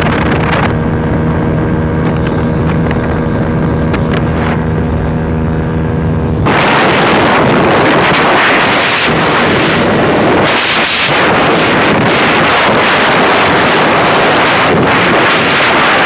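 Yamaha YBR 125's single-cylinder four-stroke engine, fitted with an Akrapovic exhaust, running at steady high revs near top speed, around 115 km/h. About six seconds in, loud wind buffeting on the microphone suddenly takes over and drowns out the engine.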